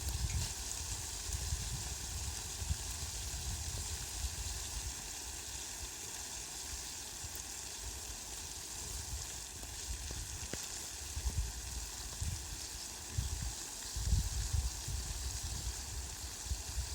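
Heavy rain falling steadily on leafy plants, a continuous even hiss. Irregular low rumbles come and go beneath it, most noticeably about eleven to fifteen seconds in.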